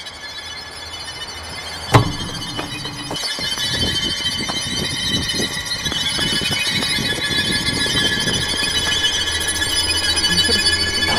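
Horror-film sound design: a sudden loud hit about two seconds in, then a shrill, high-pitched ringing drone of several tones that grows steadily louder.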